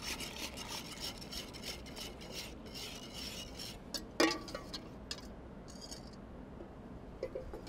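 Wire whisk scraping rapidly around a metal bowl while a thin flour-and-grape-juice batter is poured from it into a cauldron. About four seconds in a single loud metallic clank rings out, followed by a few quieter clinks.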